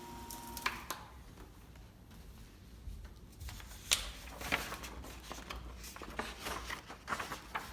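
Light rustles and taps of a sheet of paper being handled and set up to feed into a laminator. A steady high tone stops under a second in.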